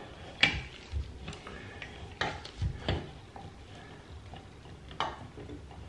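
Metal slip-on tub spout being slid and twisted onto its pipe at a tiled wall, giving a handful of light clicks and knocks spread out at irregular intervals.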